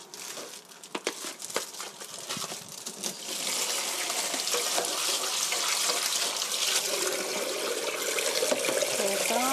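Plastic crinkling and light clicks as a gloved hand handles a plastic meat tray. About three seconds in, a kitchen tap comes on and water runs steadily, splashing over the tray in a stainless-steel sink as raw chicken is rinsed.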